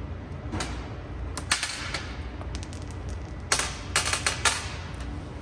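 Sharp metallic clinks of steel transmission parts being handled: the differential set into its ring gear and the steel ring-gear bolts picked up and set down. A few single clinks, then a quick cluster of about five some three and a half seconds in, over a low steady hum.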